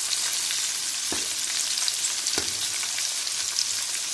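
Egg-and-flour-coated chicken pieces deep-frying in hot oil: a steady sizzle with fine crackling. A slotted spoon turning the pieces in the pan gives two soft knocks, about a second and two and a half seconds in.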